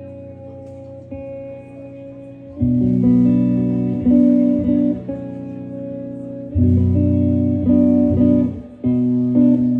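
Live blues-rock band playing an instrumental intro on electric guitars and bass guitar: a quiet held chord, then the band comes in loud about two and a half seconds in, hitting sustained chords again near the middle.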